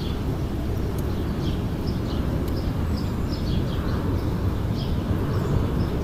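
Mountain stream rushing steadily, with a small bird's short, high chirps repeating over it.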